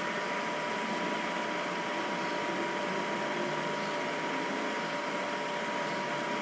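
Steady background hiss with a faint high-pitched hum of two steady tones: the noise floor of a voice-over recording, with no distinct events.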